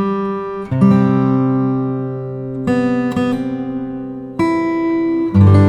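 Background music: acoustic guitar chords, each struck and left to ring, with a new chord every second or two.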